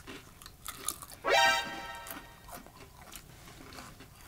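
Crisp, flaky matcha pastry crunching as it is bitten and chewed, in a few short crackles. About a second in, a short electronic sound-effect tone slides up in pitch and holds for about a second; it is the loudest sound.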